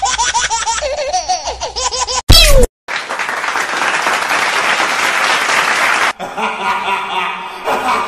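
Laughing sound effects cut one after another. First a rapid, stuttering laugh, then a brief loud burst and a short silence, then about three seconds of dense, noisy laughter, and near the end another laugh begins.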